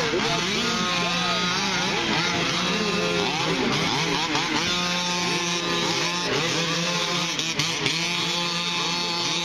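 Several 1/5-scale gas-powered RC short-course trucks racing, their small two-stroke engines revving up and down, many engine whines overlapping as they accelerate and slow for turns.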